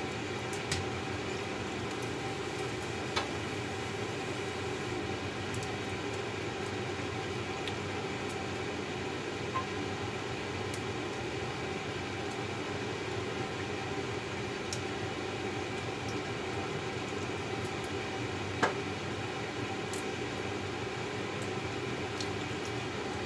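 Steady noise of seafood cooking in a covered steel wok on the stove, with a few small pops.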